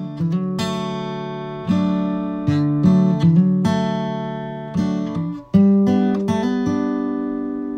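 Acoustic guitar music: strummed and plucked chords, each ringing and fading before the next.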